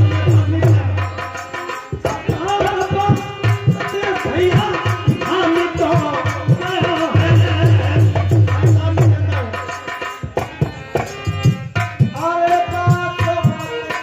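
Folk-theatre music led by a dholak barrel drum played with the hands in quick strokes, with a melody running over it. There are fast drum rolls at the start and again about seven seconds in.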